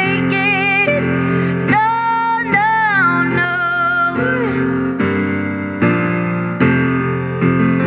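A female voice sings long, wavering notes with vibrato over electric piano chords. The voice stops about halfway through and the keyboard plays on alone in repeated chords.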